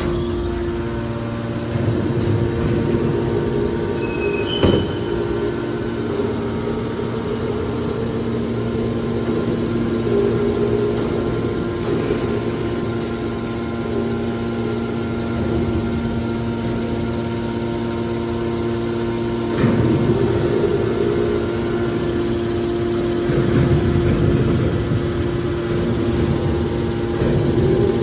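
Hydraulic power unit of a scrap-metal baler, an electric motor driving a hydraulic pump, running with a steady hum. There is a sharp knock a few seconds in and two brief noisier surges later on.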